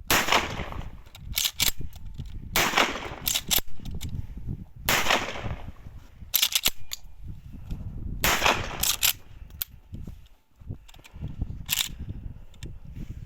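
Shotgun being fired repeatedly: a series of sharp reports at uneven intervals, the loudest of them trailing off in a long echo.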